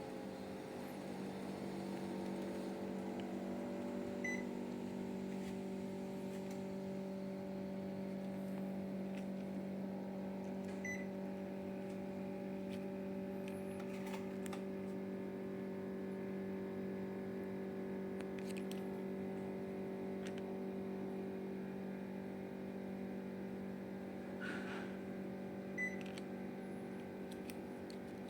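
Panasonic CS/CU-XN5RKJ 5000 BTU split air conditioner running with a steady tonal hum that grows a little louder in the first couple of seconds. Three short high beeps and a few faint clicks sound over it.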